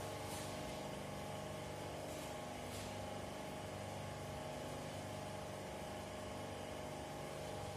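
Steady hum of block-ice plant machinery running, made of several steady tones, with a couple of faint knocks.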